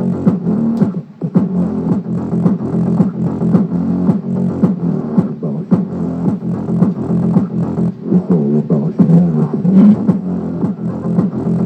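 Music played through the Intex IT-890U Mini 2.1's 3-inch subwoofer alone, with the satellite speakers disconnected. It is bass-heavy with a steady beat and almost no treble.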